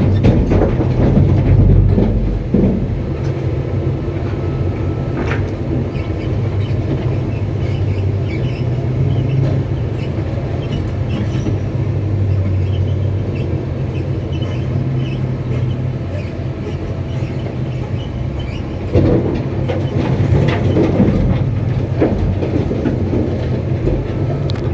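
Excavator's diesel engine running steadily, with metallic knocks from the tracks now and then, the sign of a track or undercarriage fault. The knocks come as a cluster at the start, singly a few times, and more thickly in the last few seconds.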